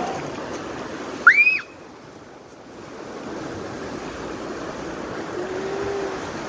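Steady rushing noise, with one loud, short squeal that rises and falls about a second in.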